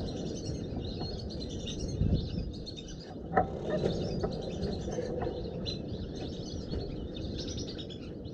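Many small high-pitched bird chirps, overlapping and continuous, over a steady rumble of strong wind on the microphone.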